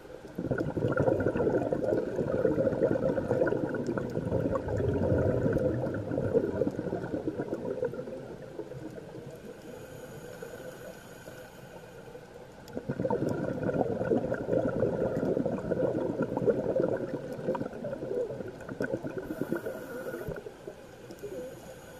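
Scuba diver's exhaled air bubbling out of the regulator underwater: two long exhalations of several seconds each, with a quieter stretch between them.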